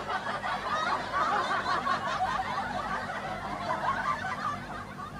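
Background laughter and chatter from several people, with soft snickering, slowly fading toward the end.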